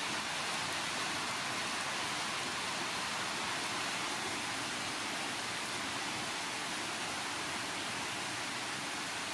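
Rain falling steadily on leaves and plants, an even hiss without let-up.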